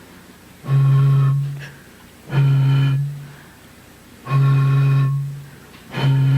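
Air blown across the mouth of an empty bottle, sounding a steady, hollow, organ-like low note four times, each lasting a little over a second.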